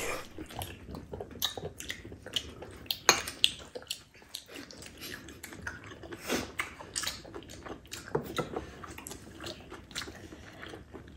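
People chewing and eating at a table, with short, irregular clicks of chopsticks and spoons.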